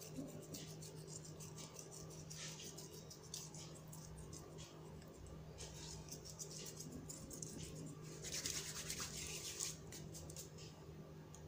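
Fingers rubbing and crumbling dried thyme over a sheet of dough: faint, dry crackling rustles that come and go, with a louder spell about eight seconds in. A steady low hum runs underneath.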